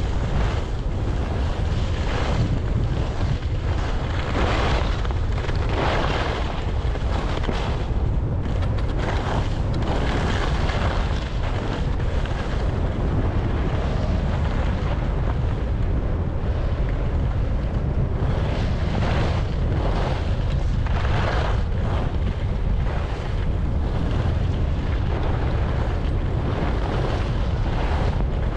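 Wind buffeting the microphone of a moving camera, a steady heavy rumble, with irregular swishing surges of snow underfoot or under skis every second or two.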